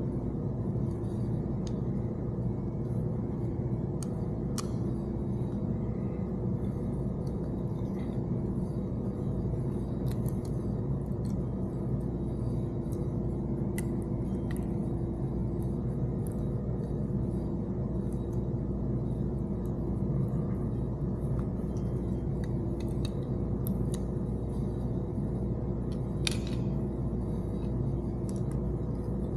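Scattered small clicks and taps of radio mounting-kit parts and screws being handled and fitted, over a steady low hum, with one sharper click near the end.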